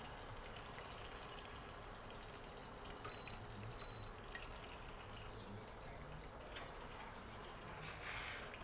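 Marinated chicken pieces frying in hot oil in a pan over low heat: a faint, steady sizzle with a few light clicks, and a brief louder hiss near the end.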